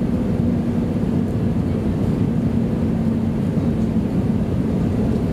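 Steady rumble of an Airbus A320's engines and airflow heard inside the passenger cabin during landing, with a steady low hum running through it.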